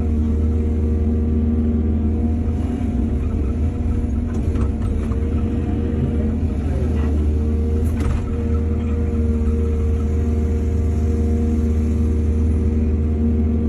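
Excavator's diesel engine running with a steady deep drone, its pitch dipping briefly about halfway through, with a faint knock about eight seconds in.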